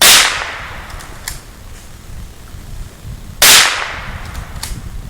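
.22 rimfire rifle fired twice, about three and a half seconds apart; each shot is a sharp crack that fades out quickly, with a faint click about a second after each.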